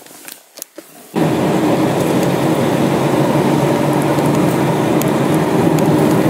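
Steady road and engine noise inside a moving car, starting abruptly about a second in. Before it, a few faint clicks.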